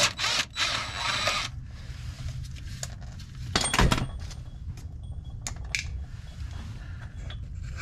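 Tool work on the 22 mm castle nut of a steering pitman arm: about a second and a half of rattling tool noise as the nut is worked off, then a sharp metal clank a little under four seconds in and a few lighter clicks, over a steady low rumble.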